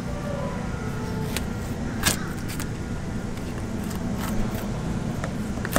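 A motor's steady low hum, with a few light clicks and scrapes as a fillet knife works along a barracuda's backbone on a plastic fillet table.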